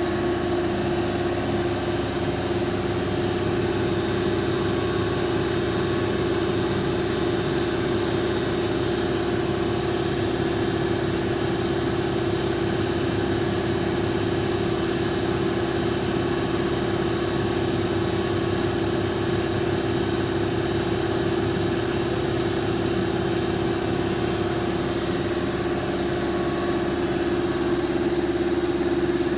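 Lathe running steadily: an even mid-pitched hum with a thin high whine above it and no breaks.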